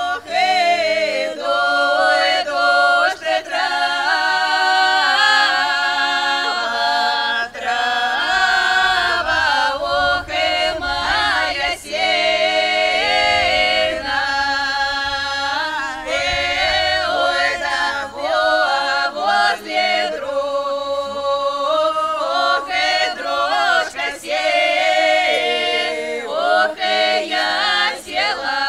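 A group of voices singing a folk song a cappella, several parts together with no instruments.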